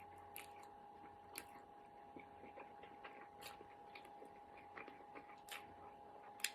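Faint chewing of instant noodles, with a few soft mouth clicks and smacks now and then.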